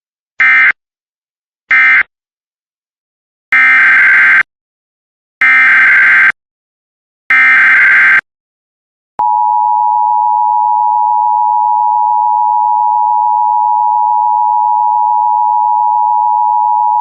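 Emergency Alert System data tones: the last two short end-of-message bursts closing one alert, then three longer SAME header bursts opening the next alert. These are followed about nine seconds in by the steady EAS attention tone, which holds unbroken to the end.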